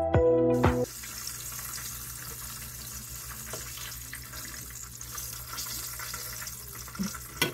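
Breaded chicken strips frying in oil in a skillet: a steady sizzle over a low hum. Electronic background music cuts off about a second in.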